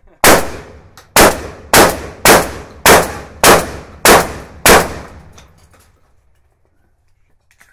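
Shotgun fired eight times in quick succession, about half a second apart, each loud report followed by a short ringing echo. Faint clicks of gun handling follow the last shot.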